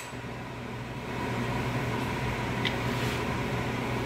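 A steady low mechanical hum with a faint hiss under it, and a single faint click about two and a half seconds in.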